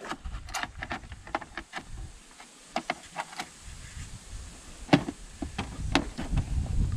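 A series of irregular sharp clicks and knocks, the loudest about five and six seconds in, over a low rumble.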